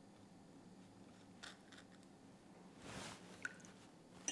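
Faint scraping of a kitchen knife drawing seeds out of a split vanilla pod on a plastic chopping board, a few short soft scrapes and a small click against near silence.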